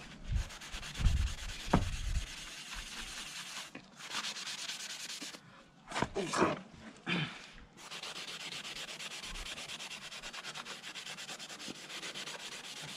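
Scouring side of a kitchen sponge, wet with WD-40, scrubbed hard back and forth over a rusty motorcycle exhaust header pipe to lift rust and baked-on dirt. The first half is irregular, with a few knocks and scuffs. From about the middle on it is a rapid, even scratchy rubbing.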